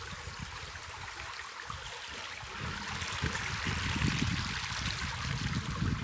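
Small woodland creek trickling over rocks, a steady rush of water, with irregular low rumbles coming in during the second half.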